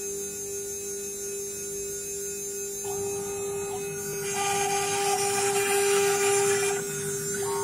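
Spindle of a 6090 CNC router running with a steady high whine while its engraving bit cuts an outline into a wooden board. A hiss of cutting joins the whine about three seconds in and grows louder through the middle, then eases near the end.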